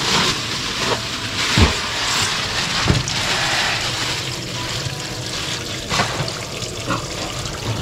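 Kitchen tap running steadily into a stainless steel sink and splashing onto raw whole chickens. There are two dull thumps about one and a half and three seconds in as the chickens drop from a plastic bag into the sink, and a couple of lighter knocks near the end.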